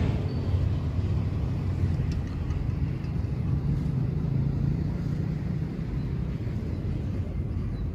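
Low, steady rumble of a motor vehicle's engine, swelling a little midway.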